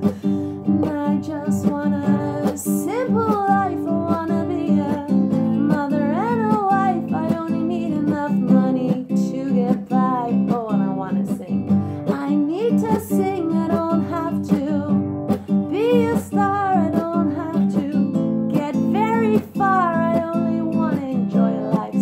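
A woman singing while strumming an acoustic guitar.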